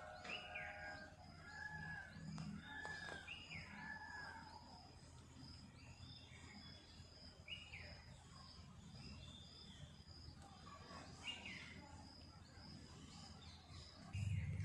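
Several small birds chirping in a morning chorus: short repeated chirps and quick down-sliding whistled notes, faint. A low rumble sets in just before the end.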